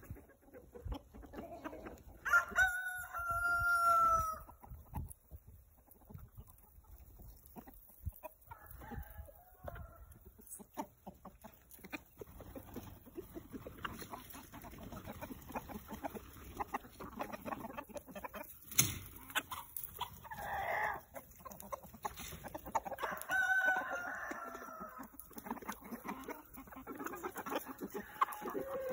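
A rooster crows twice, a few seconds in and again about three quarters of the way through, while hens cluck around it.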